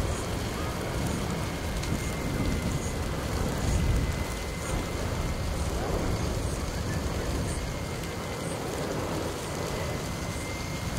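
Bushfire burning through trees: a steady rushing noise of flames and burning vegetation. A faint, thin high tone holds steady from about two seconds in.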